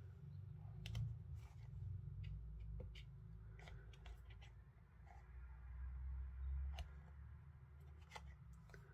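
Faint handling sounds of rubber stamping: a clear acrylic stamp block tapped onto an ink pad and set down on card, giving a few scattered soft clicks and taps over a steady low hum.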